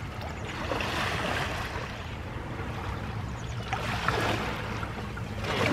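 A passing boat's wake washing and splashing against the hull of an anchored jon boat, coming in two surges.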